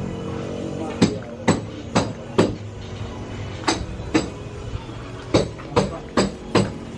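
Hammer blows, about ten in all, in three groups of four, two and four strikes roughly half a second apart.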